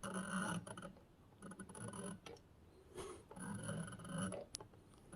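Typewriter ribbon and spool being handled and fitted into the typewriter: faint rubbing and small mechanical clicks in three or four short spells.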